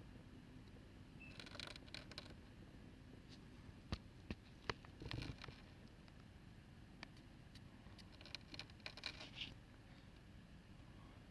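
Faint, scratchy crackling from a slug, coming in a few short clusters of rapid clicks with the odd sharp tick between them.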